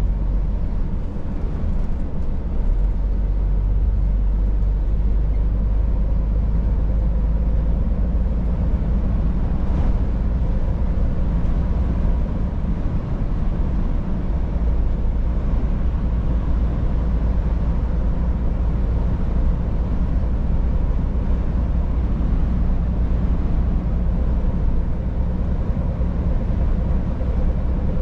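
Scania S500 truck's 13-litre inline-six diesel running steadily under way, a continuous low drone with road noise and no changes in pace.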